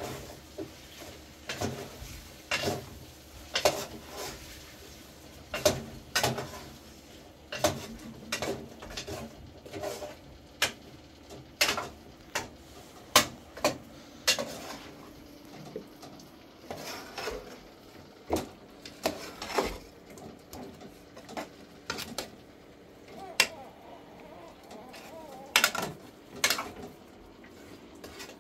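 A metal ladle knocking and scraping against the inside of a stainless steel cooking pot as food is stirred, in irregular clanks about once or twice a second.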